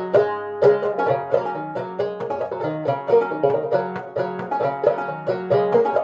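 Antique J B Schall banjo, made around 1900, played clawhammer style: a steady rhythmic run of plucked notes, each struck sharply and ringing briefly.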